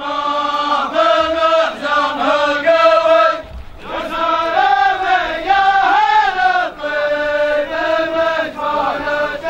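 Men's voices chanting a sung poem in long, drawn-out melodic phrases, with a brief pause about three and a half seconds in.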